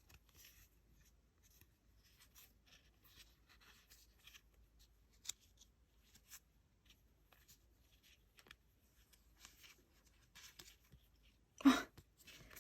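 Faint rustling and light ticks of paper photocards and their packaging being handled and turned over, with one short, louder bump near the end.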